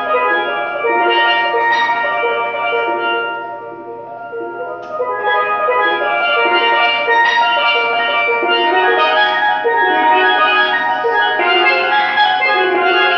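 Steelpan played as a fast run of ringing pitched notes. The playing drops softer about three seconds in, then builds back up from about five seconds.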